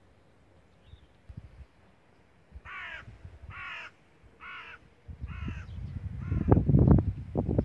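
A crow cawing five times in a steady series, each caw harsh and short. From about five seconds in, wind buffets the microphone with a low rumble that grows and becomes the loudest sound near the end.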